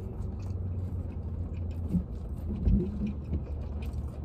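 A man chewing a mouthful of fried chicken sandwich, with faint mouth clicks, over the steady low hum of the car he is sitting in. Two short low hums from his throat come about two seconds and nearly three seconds in.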